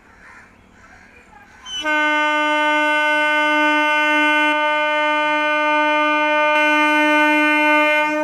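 A MEMU electric train's horn sounding one long steady blast at a single pitch as the train pulls out. It starts abruptly about two seconds in and cuts off near the end.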